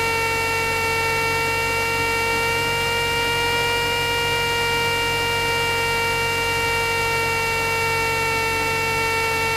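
Steady cabin drone of a Cessna 172S in flight, with engine and propeller noise picked up through the headset intercom. A steady hum of several even, high tones lies over it.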